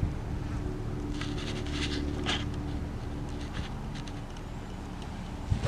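Quiet open-air background with a low rumble and a faint steady hum. Right at the end comes one sharp crack: a golf club striking the ball off the tee.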